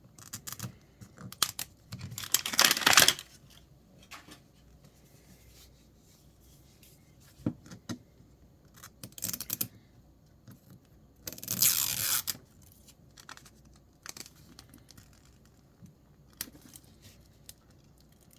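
Plastic packaging of a Miniverse mystery ball being torn open: two longer ripping tears, about two seconds in and again around eleven seconds in, with small clicks and rustles of handling between.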